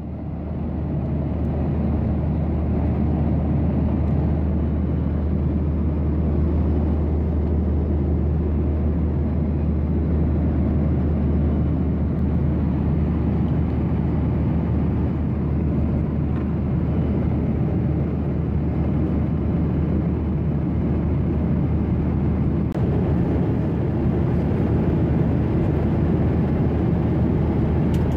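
Steady jet engine and airflow roar inside the cabin of a Boeing 737-800 with CFM56 turbofans. It builds over the first couple of seconds, then holds even, with a strong low hum under it.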